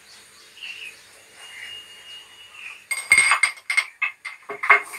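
Stainless-steel kitchen vessels clanking and clinking against each other, with a metallic ring. There is a quick run of knocks from about three seconds in to the end, as utensils are handled on a stacked shelf.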